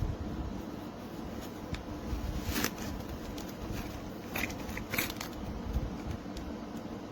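Light handling noise: a few short clicks and rustles over a low background rumble.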